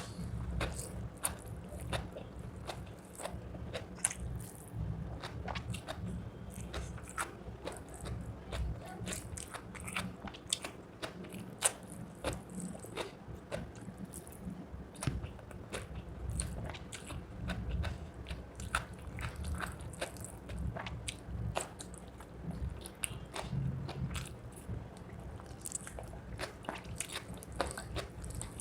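Close-miked eating of rice and chicken leg curry: steady chewing and biting with many quick, irregular wet clicks and crunches.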